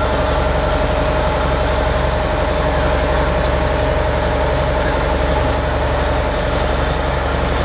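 Boat's engine running steadily, heard on board: a constant drone with a low rumble and a steady hum.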